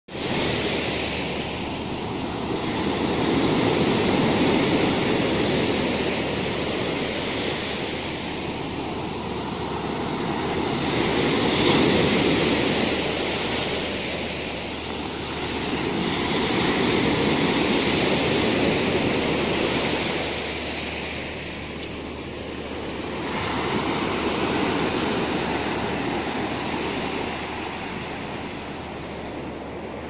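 Sea waves breaking and washing up a pebble beach, a steady rush of surf that swells and eases with each wave, about every six to seven seconds.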